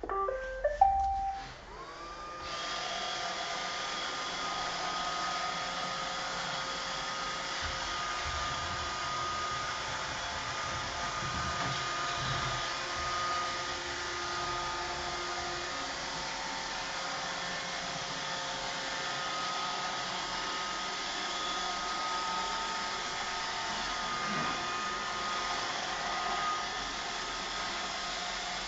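Roomba 530 robot vacuum playing its short rising start-up tune of a few beeps, then its vacuum and brush motors spinning up and running with a steady whirring hum.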